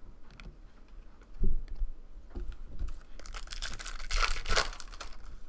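Foil trading-card pack wrapper torn open and crinkled in the hands, a dense crackle of about a second and a half starting near three seconds in. A single low thump comes about a second and a half in.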